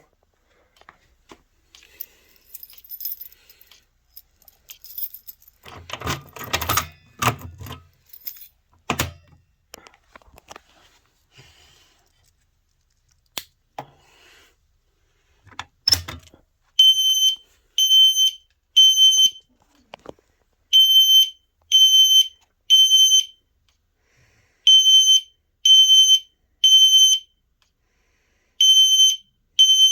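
Clattering and knocking from handling for about the first sixteen seconds, ending in a sharp knock. Then System Sensor L-Series fire alarm horns sound in a temporal-three pattern: three high beeps, a pause, then three more, repeating about three times.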